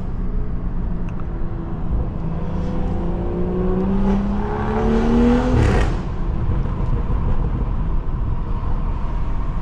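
Tuned BMW 540i's turbocharged straight-six with catback exhaust and downpipe, pulling under acceleration with the engine note rising for a few seconds, then a gear shift with a brief loud burst just before halfway, after which it settles into a steady lower drone.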